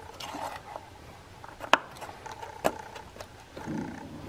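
Plastic ignition-coil wiring connectors and harness being handled and pushed onto the coils: two sharp plastic clicks about a second apart, with lighter rattles and a brief rustle of the harness near the end.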